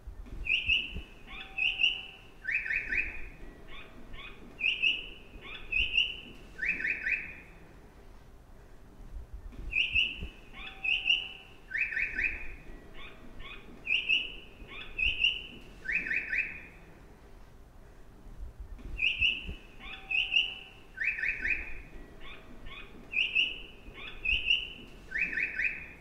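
Recorded bird chirps played as a train-station stair-location cue for vision-impaired travellers. It is a short phrase of high chirps and buzzy twitters that repeats exactly the same three times, about every nine and a half seconds, over a faint low background rumble.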